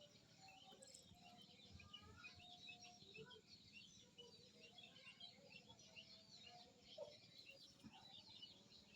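Faint, continuous chirping of many small birds, rapid short calls overlapping throughout, with a few brief lower notes mixed in.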